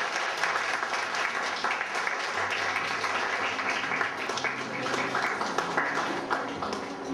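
Audience applauding, with a dense patter of many hands clapping.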